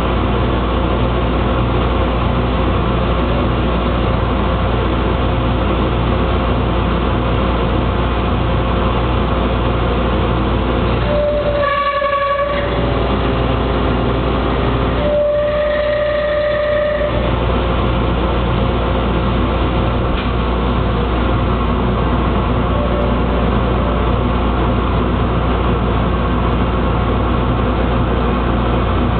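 CNC lathe running: a loud, steady machine drone with several steady tones. Twice, around 12 and 16 seconds in, the low rumble briefly drops out and a clear steady tone sounds on its own.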